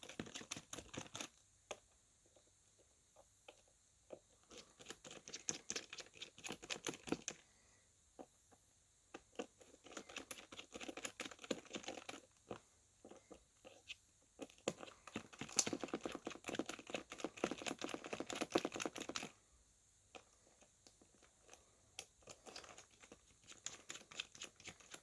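Faint runs of small clicks, taps and crinkles from hands and small tools working on a Samsung Galaxy S6 phone being taken apart, with quiet pauses between; the densest, loudest run comes a little past the middle.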